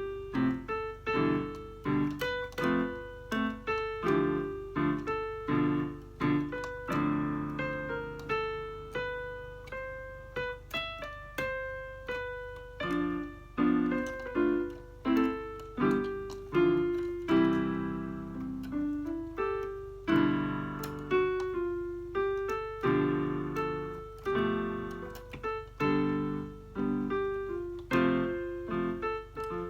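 Electronic keyboard played in a piano voice: a steady stream of struck notes and chords, each dying away, with a faint low hum underneath.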